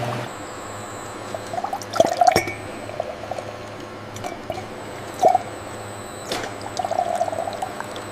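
Liquid pouring and dripping over a low steady hum, with small drips and a few sharp clinks about two, two and a half, five and six and a half seconds in.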